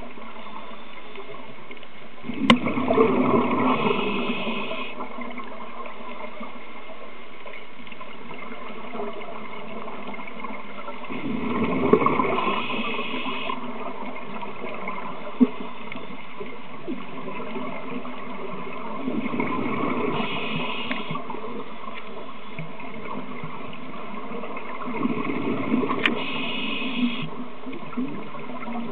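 Scuba diver breathing through a regulator underwater: four gurgling rushes of exhaled bubbles, roughly every eight seconds, over a steady underwater background drone.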